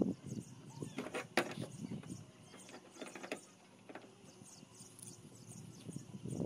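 Scattered light clicks and knocks of a wrench tightening the flare nut on the thin copper refrigerant pipe at a split air conditioner's outdoor-unit service valve.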